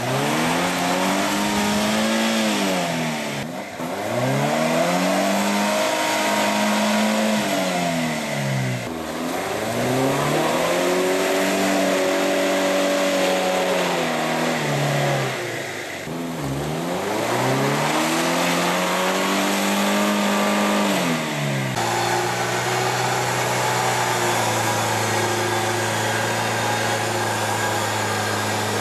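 Suzuki Grand Vitara engine under load in deep mud, revving up and easing off four times in long swells. About three-quarters of the way through, it settles into steady running at a constant speed.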